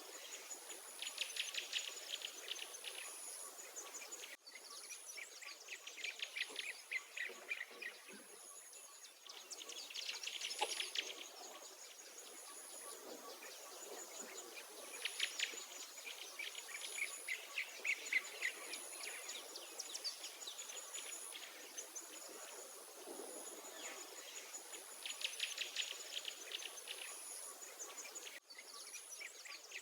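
Wild songbirds singing outdoors: rapid trilled phrases of a second or two, repeated every few seconds. Under them runs a thin, very high note repeating about once a second, like an insect's chirp.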